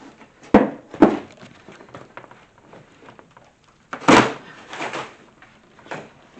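A compact twin tub washing machine being worked out of its cut-down cardboard box: two sharp knocks about half a second apart, then a louder thump about four seconds in, with smaller knocks between.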